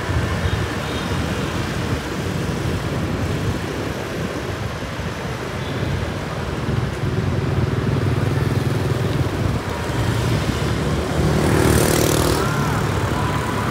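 Street traffic of motorbike and car engines running, with a louder rush near the end as a vehicle passes close.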